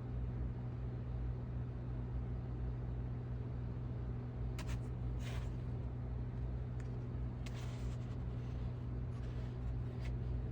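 Steady low hum, with a few faint, short scratching and clicking sounds of small parts being handled.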